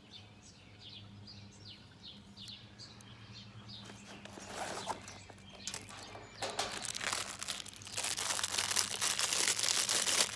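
Plastic packaging crinkling and rustling as it is handled, growing denser and louder over the second half. Birds chirp faintly in the first few seconds.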